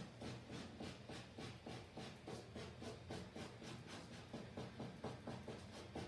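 Quick, scratchy strokes of a drawing tool on a canvas, about four or five a second in an even rhythm.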